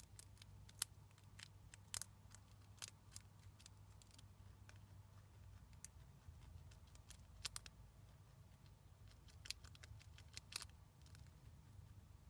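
A chinchilla crunching a piece of nut held in its front paws: irregular sharp, crisp crunches, some in quick clusters, with quiet gaps between bites.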